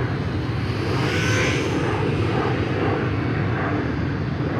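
Small electric motor and three-blade propeller of an Eachine Spitfire micro RC warbird whining faintly and high as it flies a slow pass, the pitch bending up and back down about a second in, over a steady low rumble.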